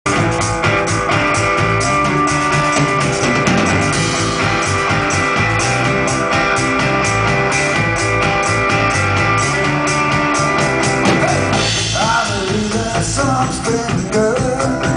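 Live rock band playing: electric guitar, bass and a drum kit on a steady beat, with a singing voice coming in about twelve seconds in.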